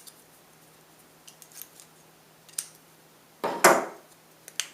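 Tin snips cutting the thin steel sidewall of a tuna can: a few light blade clicks, then one louder cut about three and a half seconds in, and two sharp clicks near the end.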